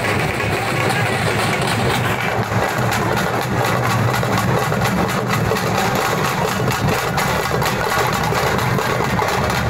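A troupe of drummers beating barrel drums and round hand drums in a fast, unbroken rhythm.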